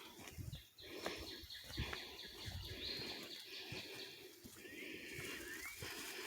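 A bird singing a string of short, even high notes, followed by a couple of rising slurred notes near the end, over soft rustling.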